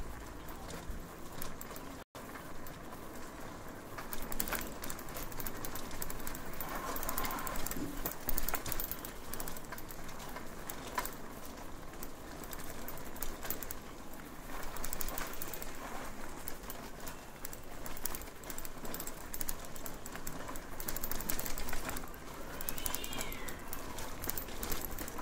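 Lane street ambience heard from a bicycle on the move: a steady low rumble with many scattered clicks and rattles, and a short gliding chirp near the end.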